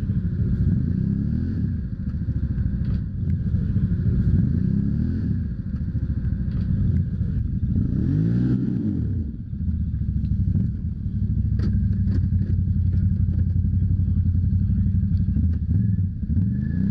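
A quad ATV's engine revs up and down repeatedly, then holds at high revs for several seconds, as the machine labours through deep mud and is stuck at times. A few sharp knocks come through over the engine.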